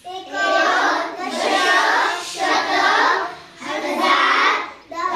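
A class of young children chanting together in a sing-song rhythm, in about five phrases, reciting the Marathi place-value names (एकक, दशक, शतक, हजार…) in unison.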